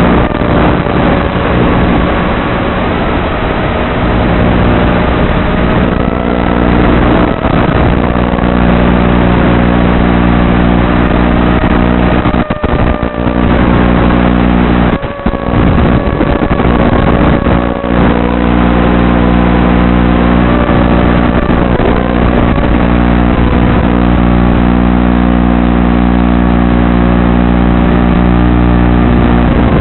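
Brushless motors and propellers of an Eachine Wizard X220 FPV racing quadcopter in flight: a continuous whine that rises and falls in pitch with the throttle, over a steady low hum, with a few brief dips.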